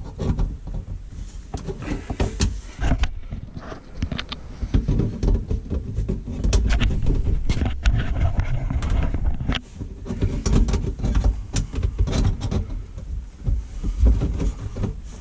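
Hand work on the under-sink drain plumbing while removing an old garbage disposal and trap: an irregular clatter of knocks and clicks over a heavy, uneven low rumble.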